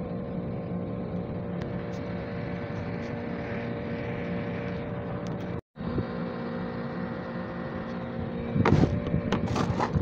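A steady mechanical hum with a clear pitch, like an engine running, drops out completely for a moment a little past halfway and then resumes. Near the end a run of sharp knocks and clicks comes in as tools work on the washing machine's plastic base.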